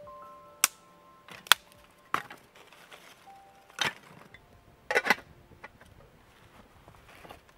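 Dry twigs cracking and clicking as kindling is handled and laid in a stone fire pit. There are a handful of sharp cracks, and the loudest is a close pair about five seconds in.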